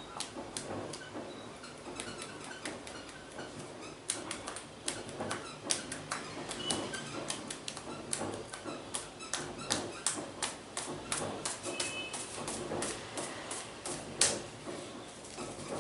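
Hands working an oiled scalp: a fast, irregular run of slaps, pats and wet clicks, several a second, with one sharper, louder hit near the end.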